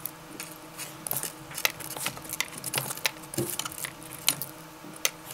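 Pencil scratching on paper as lines are drawn along a metal ruler, with irregular light clicks and taps as the ruler and pencil are handled on the drawing.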